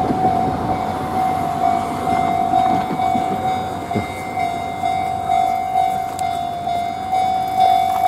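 Japanese railway level-crossing warning bell sounding continuously as one steady ringing tone, over a steady rumbling noise.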